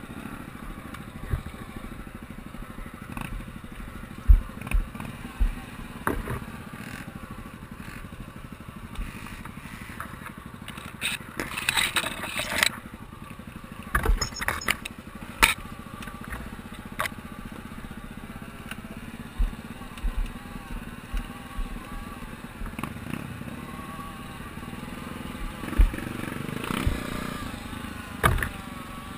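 Honda XR 250 Tornado's air-cooled single-cylinder four-stroke engine running at low revs on a rough trail, with repeated knocks and clatter as the bike bounces over loose stones. Sugarcane leaves swish against the helmet now and then.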